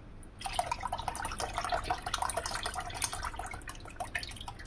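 Evaporated milk pouring from a small carton into a pot of hot milk and rice: a thin stream trickling and splashing, starting about half a second in as a dense, steady patter.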